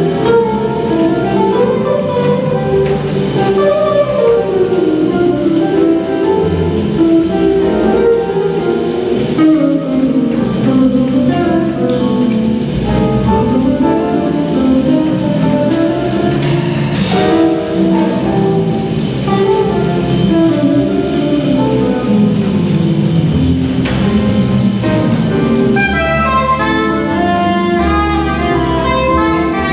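Small jazz band playing live: saxophones over electric guitar, bass and drum kit, with a higher, quicker melodic line coming in near the end.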